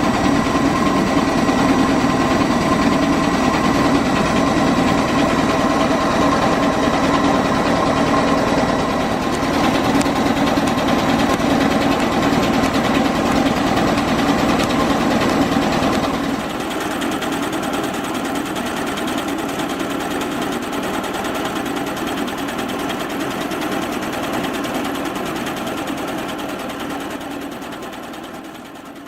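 Restored Fairbanks Morse Type DH 3.5 kW 125-volt DC dynamo running on test: a steady mechanical whir with a steady whine over it. About halfway through it turns quieter and thinner, and it fades out at the end.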